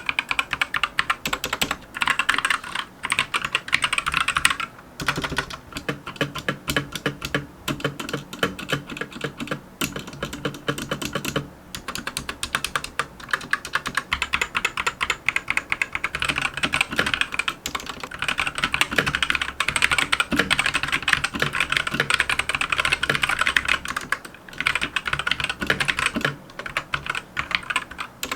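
Typing on a Monstargear MK308 keyboard with Gateron red optical switches and PBT keycaps: a fast, steady run of keystrokes with a few short pauses, about 5, 12 and 24 seconds in.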